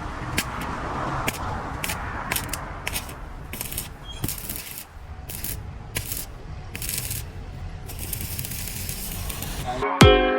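Arc welding on a steel bike stand: a run of short crackling hisses, each under a second, with sharp clicks between them, over a low steady rumble.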